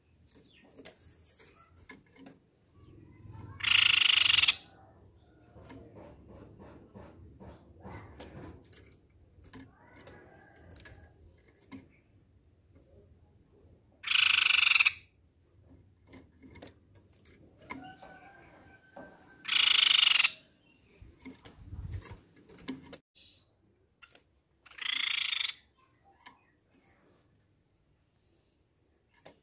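Grey-cheeked tit-babbler (tepus pipi perak) giving four harsh, buzzy calls, each about a second long and several seconds apart, with faint clicks between them.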